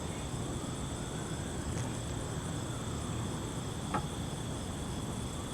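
Steady high-pitched chorus of night insects trilling without a break, with one faint click about four seconds in.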